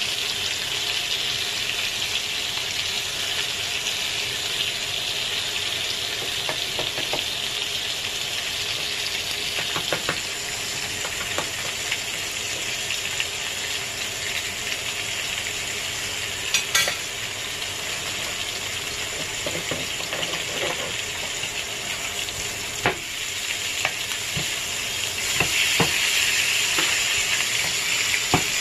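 Buttered T-bone steaks sizzling steadily on a hot ridged grill plate, with a few sharp clicks of metal tongs and a spoon against the grill. Near the end the sizzle grows louder as a steak is turned over.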